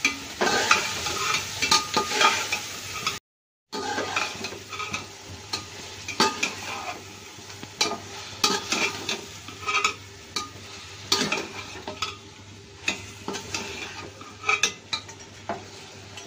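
A metal slotted spoon scraping and knocking against an aluminium pot as beef masala is stirred and fried in mustard oil, over a steady frying sizzle. This is the bhuna stage, with curd and pickle cooking down into the meat. The sound cuts out for a moment about three seconds in.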